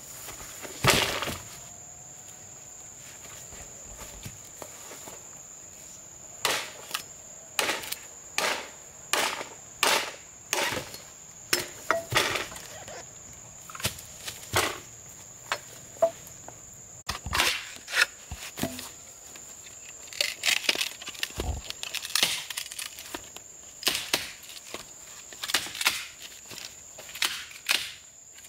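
A series of sharp knocks or strikes: one about a second in, then from about six seconds on an irregular run of one or two a second, coming thicker near the end. Under them runs a steady high buzz of insects.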